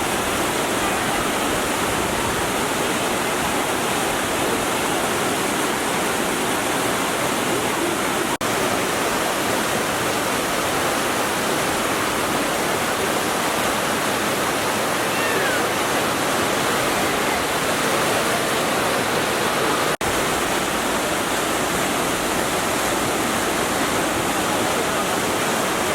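Fast-flowing floodwater rushing in a steady, loud roar.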